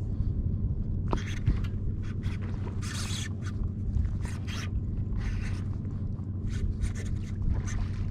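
Strong wind buffeting the microphone as a steady low rumble, with short irregular hissing bursts over it.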